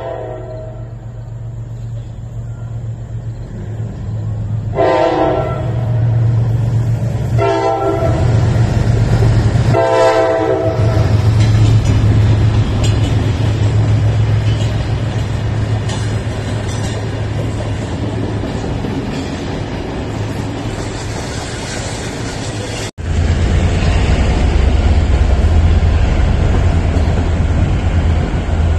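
Diesel passenger train passing through a station, sounding its horn in three blasts about 5, 7.5 and 10 seconds in over the steady rumble of the locomotive and coaches. About 23 seconds in the sound cuts abruptly to the steady rumble of riding aboard a moving train.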